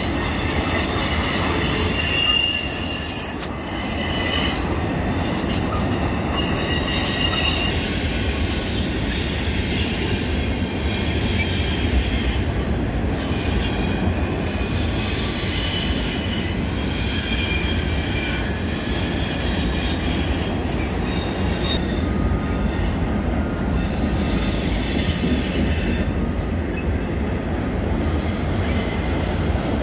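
CSX freight train of intermodal and autorack cars rolling steadily past, with the noise of wheels on rail. Short high-pitched wheel squeals come and go throughout.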